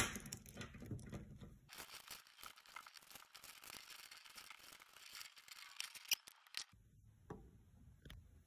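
Faint clicking and rustling of plastic pony beads as the string is pulled tight through a beaded cuff, stopping about two-thirds of the way through.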